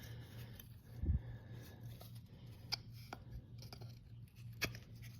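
Quiet workbench handling: a low thump about a second in, then a few light clicks and taps as the metal trowel head is worked into its wooden handle, over a steady low hum.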